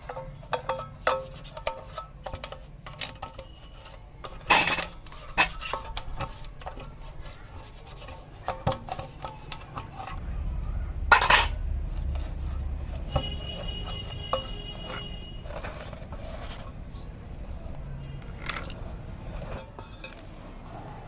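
Metal tools and parts clinking and knocking irregularly, with a low rumble coming in about halfway through.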